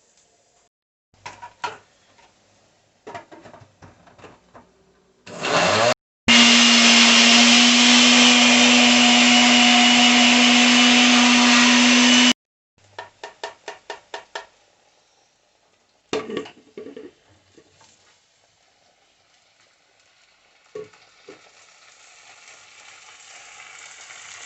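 Kitchen blender running for about six seconds, grinding tomatoes, with a steady hum that starts and stops abruptly. Scattered knocks come before it and a quick run of taps after it. A rising hiss builds near the end.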